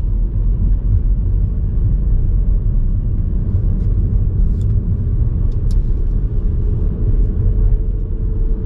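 Car driving on the road, heard from inside the cabin: a steady low rumble of engine and tyre noise, with a faint steady hum in the second half.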